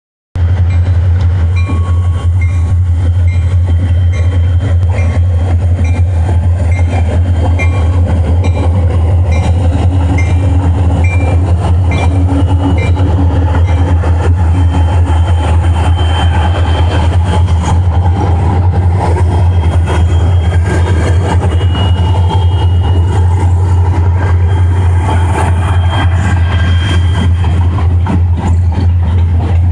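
Bay Line Railroad freight train rolling past at night, loud and steady, with a strong low drone under the noise of the railcars. Thin high squeals come and go in the second half.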